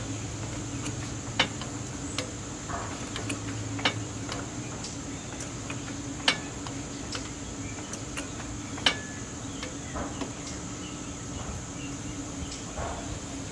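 Sharp, scattered clicks and knocks of hand tools against the suspension as a rear coil spring is worked free, most likely with a pry bar. There are four louder knocks spread through, over a steady high buzz and a low hum.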